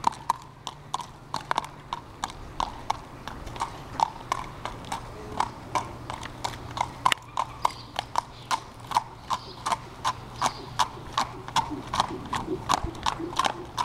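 A Thoroughbred gelding's hooves clip-clopping on paved ground as it is led in hand, first at a walk and then at a trot: a steady run of sharp hoofbeats, about three a second.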